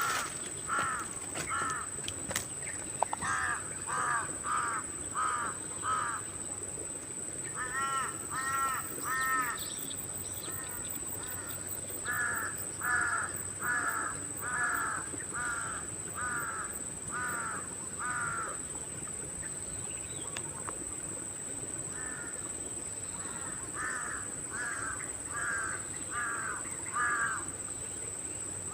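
A bird calling over and over in runs of several calls, about two a second, with short pauses between the runs.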